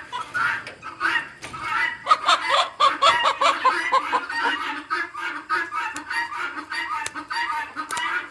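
Chickens squawking and clucking in rapid, repeated calls: the distress cries of birds being caught and handled for wing clipping.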